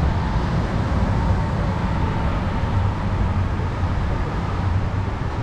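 Steady low rumble and hiss of an underground subway station passageway, with a faint hum over it.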